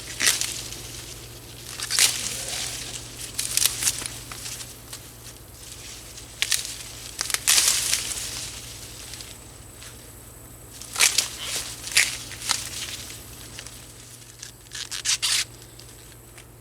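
Ears of sweet corn being snapped and torn off the stalks, with the husks and leaves rustling: a dozen or so short, sharp tearing bursts at irregular intervals.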